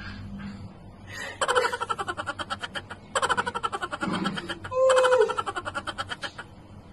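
A woman laughing hard in three long bursts of rapid, pulsing laughter, the first about a second and a half in, the next near three seconds and the last near five seconds.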